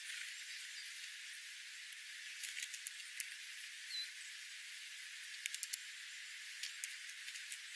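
Jays and sparrows pecking at scattered birdseed and sunflower hulls: irregular sharp clicks in small clusters over a steady hiss, with one brief high chirp about four seconds in.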